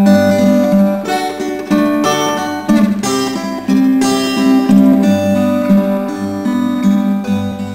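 Unaccompanied acoustic guitar doodling, loosely in the style of a Spanish fandango: chords strummed about once a second with single plucked notes ringing between them.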